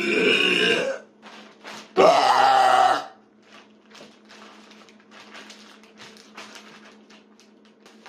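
A woman makes two loud, drawn-out wordless vocal sounds, each about a second long, with a pitch that wavers. After that come only faint light taps and handling noises over a steady low hum.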